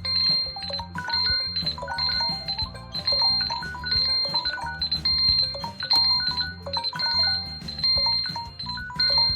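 A smartphone's built-in musical alert tone playing: an electronic tune with a high held note over short melodic notes and a bass line, its strongest beats about once a second.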